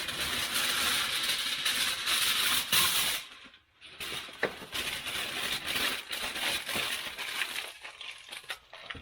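Aluminum foil being crumpled and scrunched by hand: a dense crinkling that stops briefly about three and a half seconds in, then goes on as lighter crackles and clicks.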